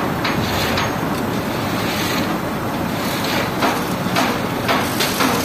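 Steady running noise of heavy machinery, with irregular short knocks and clanks, several of them in the second half, as wire-rope slings are fitted to a steel pan mixer.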